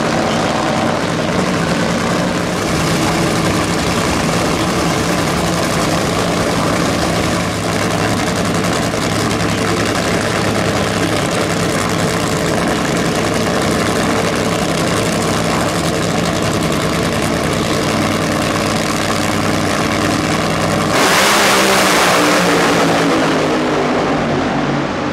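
Two nitromethane-burning Top Fuel Funny Cars' supercharged Hemi V8s running steadily at idle on the start line, then going to full throttle about 21 seconds in, suddenly much louder, their pitch falling as the cars pull away down the strip.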